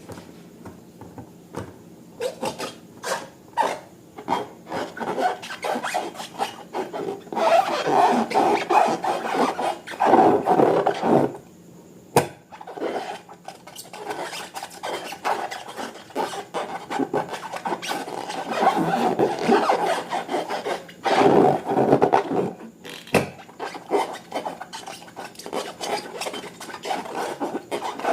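Slime being worked by hand: irregular sticky clicks and rubbing, squelching noises. These come in bursts, loudest about a third of the way in and again about three quarters through.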